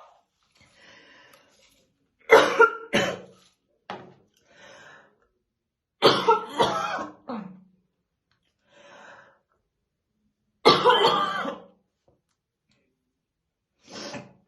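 A woman coughing in three heavy fits, about two, six and eleven seconds in: a smoker's morning cough.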